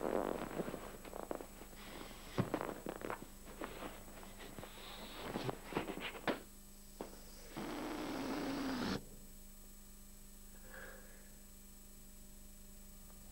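Smacking kisses and squeaks of skin on a vinyl inflatable doll, then a loud rush of air with a low buzz for about a second and a half that cuts off suddenly.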